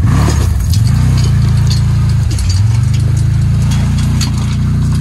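CFMoto ZForce side-by-side UTV engine running at idle, its note dipping briefly twice, with faint metallic clicks.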